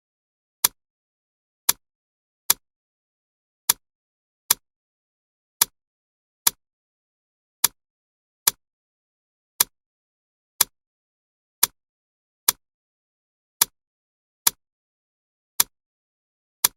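Alarm clock ticking about once a second: sharp, dry ticks, slightly uneven in spacing, with silence between them.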